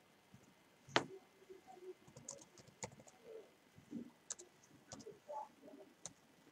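Faint, scattered clicks of a computer keyboard and mouse as a search is typed, a handful of separate strokes with the sharpest about a second in. Faint soft low sounds come between the clicks.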